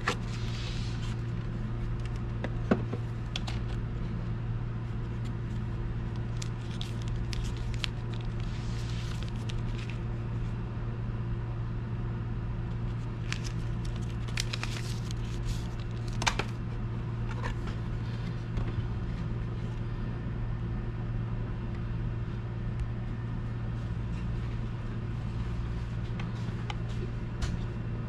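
Paper and plastic packaging being handled: the folded paper user's guide rustling and crinkling and the clear plastic watch case clicking now and then, over a steady low hum.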